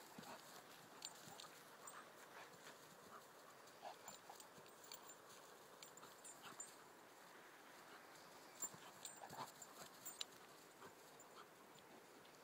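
Faint sounds of a German Shepherd and an English Springer Spaniel puppy play-fighting on grass: scattered short scuffles and clicks, a little louder for a couple of seconds about two-thirds of the way through.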